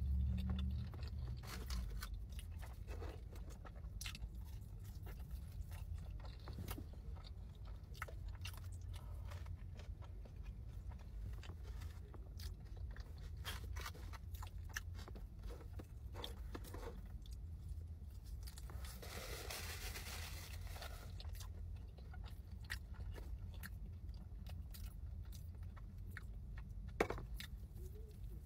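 A person chewing a big mouthful of cheeseburger on a toasted bun close to the microphone: wet crunching with many small mouth clicks, over a steady low hum. One sharper click comes near the end.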